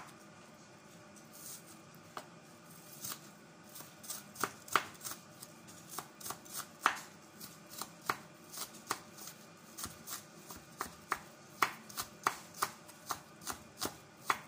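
Chef's knife chopping red onion fine on a wooden cutting board, the blade knocking sharply on the board. The knocks are scattered at first, then turn steady at about two to three a second from about four seconds in.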